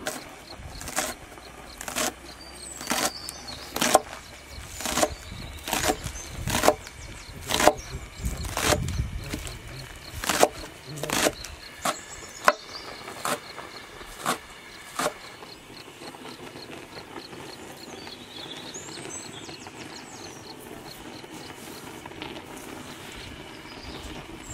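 A series of sharp, hard knocks, about one a second, for the first fifteen seconds, then a quiet steady background with a few faint bird-like chirps.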